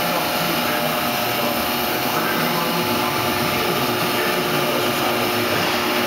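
Steady hum and hiss of the pail-filling line's machinery running, with a few faint held tones and no sudden knocks.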